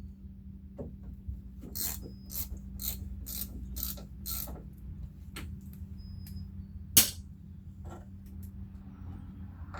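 Hand ratchet clicking through a run of about seven strokes, roughly two a second, as fasteners on the Jeep door are turned. It ends with one sharp, loud click about seven seconds in.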